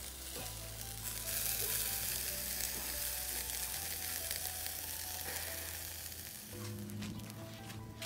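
Beef ribs sizzling on a wire grill grate, a steady hiss that fades out about six and a half seconds in. Soft background music with long held notes plays underneath.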